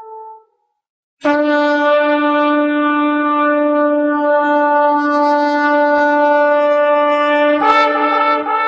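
Shofar blown in one long steady note lasting about six seconds, which breaks upward into a higher, wavering note near the end; the tail of an earlier blast fades out at the start.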